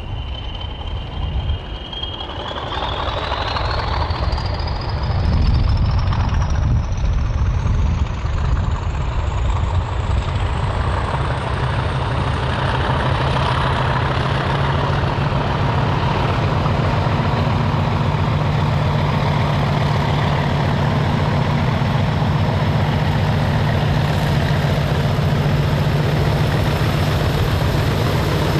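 English Electric Class 40 diesel locomotive's engine working hard as it pulls a train away. Its turbocharger whistle starts rising in pitch about two seconds in and keeps climbing, over a heavy steady engine note.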